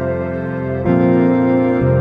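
Background music of long, sustained chords, moving to a new chord a little under a second in and again near the end.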